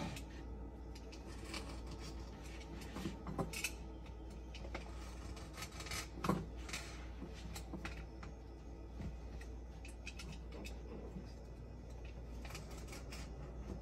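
Scattered light clicks, taps and scrapes of small hand work with a tool, with a cluster a little after three seconds and a sharper knock about six seconds in.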